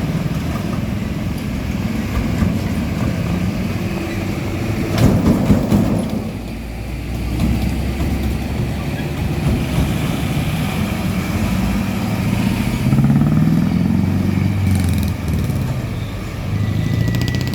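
Road traffic with heavy truck engines passing close by, the engine sound at its loudest about five seconds in. Later, engine notes rise and fall as vehicles accelerate and change gear.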